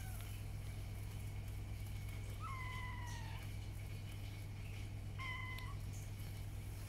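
Young kittens mewing in high, thin calls. One mew lasts about a second and falls slightly, a couple of seconds in, and a shorter one comes just after five seconds, over a steady low hum.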